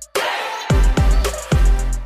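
Electronic background music with deep, falling bass hits on a steady beat.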